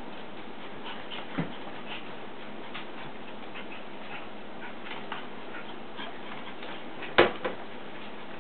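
Havana Silk Dog puppies playing on a tile floor: light, scattered clicks and scuffs of their claws and paws on the tiles, with one short, sharp louder sound about seven seconds in.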